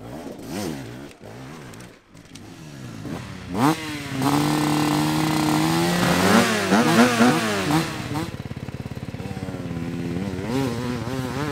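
Enduro dirt bike engines revving: about three and a half seconds in, one engine climbs sharply in pitch and holds high revs, then its pitch rises and falls several times as it is blipped. After that it runs lower and steadier, with a few more quick revs near the end.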